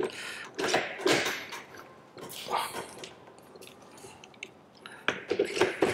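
Golf trolley rear wheels being pushed onto the metal axle by their quick-release hubs: a series of short clicks and knocks as each hub slides on and seats, with a cluster of them near the end.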